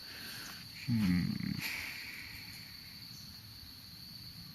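Steady high-pitched chirring of insects, like crickets, in woodland. About a second in, a short low voice sound, a brief hum or grunt from a person.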